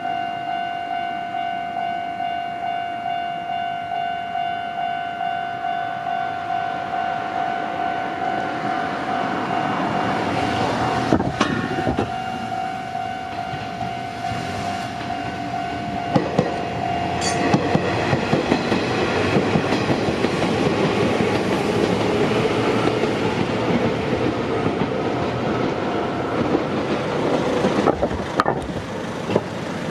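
A Japanese level-crossing alarm rings in a steady repeating ding, and an electric train passes over the crossing, its wheels clacking over the rail joints. The alarm stops a little past halfway while the train is still running through.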